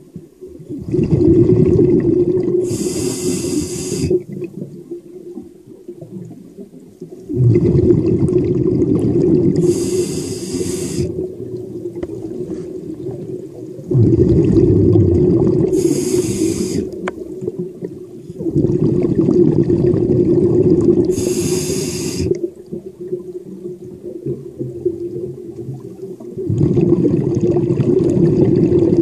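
A diver's breathing heard underwater, about five breaths, each a long low rushing sound ending in a short high hiss, repeating about every six seconds.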